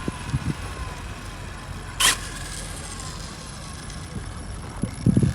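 Faint whine of a radio-controlled car's electric motor, slowly falling in pitch, with a short, sharp noisy burst about two seconds in and a few low knocks near the end.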